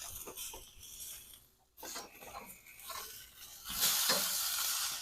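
Hamburger patties sizzling on a hot charcoal grill grate, with short scrapes and knocks of a spatula on the grate as they are moved and flipped. The sizzle swells louder about four seconds in.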